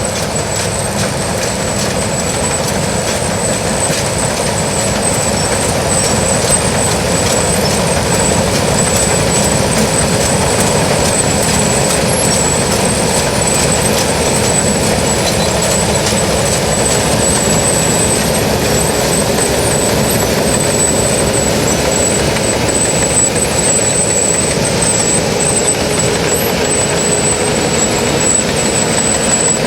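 New Holland TX68 combine harvester running steadily while harvesting rice: a dense, even machinery noise with a constant high whine over it.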